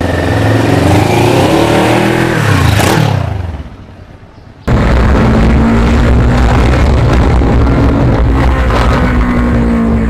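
Kawasaki Ninja 650R's parallel-twin engine running while riding, its note falling between about two and three and a half seconds in and then fading. Just under halfway through, an abrupt cut to steady running with road wind.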